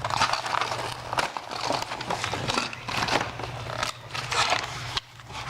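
Plastic and cardboard toy packaging being handled and pulled open, with irregular crinkling and rustling.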